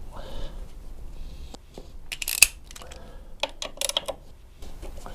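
Metal hand tools clicking and clinking against the exhaust mounting bolts as they are tightened on a scooter's stainless steel exhaust, in two short clusters about two and three and a half seconds in.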